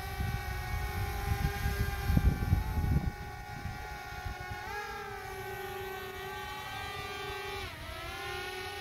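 Quadcopter drone's propellers whining as it flies, a steady multi-tone hum whose pitch rises briefly about five seconds in and dips just before the end as the motors change speed. A low, uneven rumble is loudest in the first three seconds.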